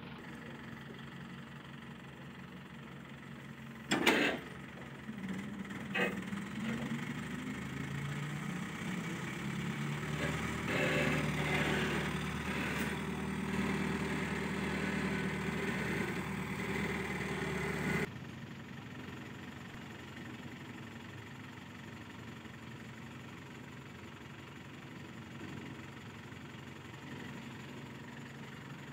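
ACE mobile crane's diesel engine running while it lifts a railway bogie on chains, with a loud knock about four seconds in and a smaller one about two seconds later. The engine runs louder and steadier from about ten seconds in, then cuts off suddenly to a quieter idle.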